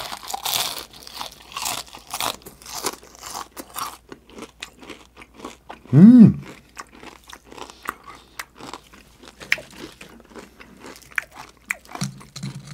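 Close-miked crunching and chewing of crispy deep-fried chicken skin, a bite at the start followed by many small crackles as it is chewed. About six seconds in, a loud, short closed-mouth hum rises and falls in pitch.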